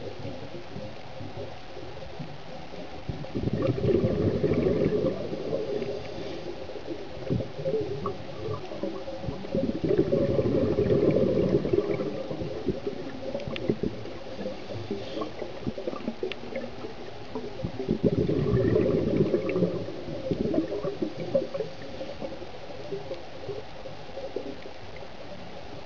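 Underwater sound of a scuba diver's exhaled bubbles gurgling up three times, each burst lasting two to three seconds, about seven seconds apart. Between them there is a quieter steady wash with a few faint scattered clicks.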